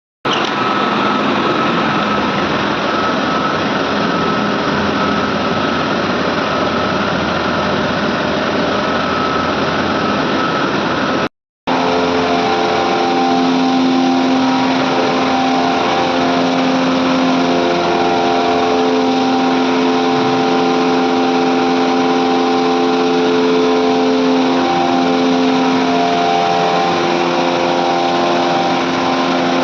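Medical air compressors running with a loud, steady noise. The sound cuts out completely for a moment about eleven seconds in, and after that steady hum tones ride over the noise.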